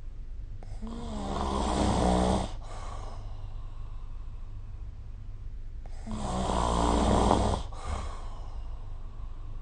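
A person snoring: two long snores about five seconds apart, each swelling for about two seconds and then stopping abruptly. A low steady hum runs underneath.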